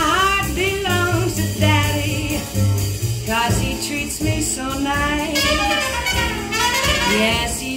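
Jazz band music from a vinyl record played through Klipsch RF7 loudspeakers. It is a passage with horn lines over a steady bass.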